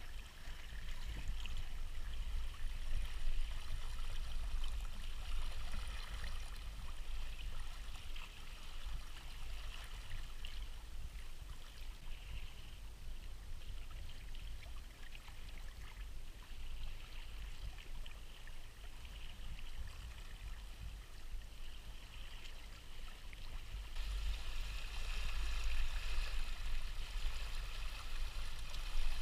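Water rushing and gurgling along the hulls of a Hobie Tandem Island sailing kayak, over a low steady rumble. The water noise grows louder near the end.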